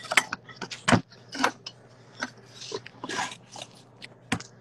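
A string of short clicks, knocks and rustles close to the microphone, the loudest knock about a second in, over a low steady hum.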